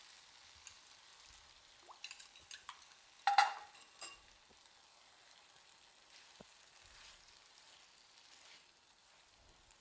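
Fish stew sizzling faintly in a frying pan, with a spoon clinking against a ceramic bowl as cornstarch is stirred into water. One sharp, ringing clink comes about three and a half seconds in.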